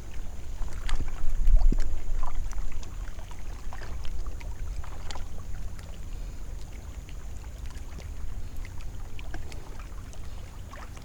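Wind rumbling on the microphone aboard a fishing kayak, strongest in the first two seconds and then easing, with light water sounds and scattered faint clicks of gear and hull.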